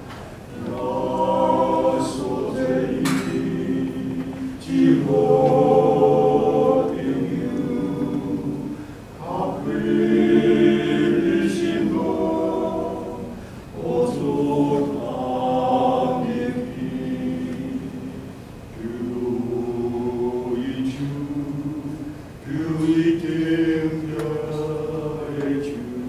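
Men's vocal ensemble singing a Taiwanese-language hymn a cappella in harmony, in sustained phrases of a few seconds each with short breaks between them.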